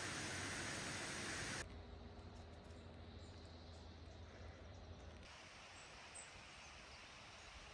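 A steady hiss that cuts off abruptly about a second and a half in, followed by quiet outdoor ambience with a few faint bird chirps.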